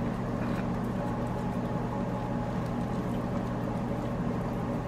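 Steady low mechanical hum that holds an even pitch and level throughout.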